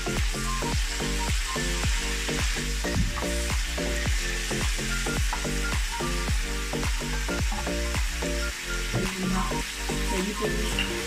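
Vegetables sizzling in hot oil in a wok as they are stir-fried with a wooden spatula: a steady frying sizzle.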